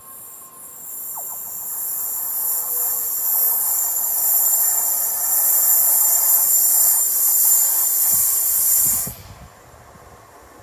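Rails hissing loudly ahead of an approaching electric commuter train, a high hiss with a thin steady whistle in it that builds over the first few seconds, holds, then cuts off suddenly about nine seconds in.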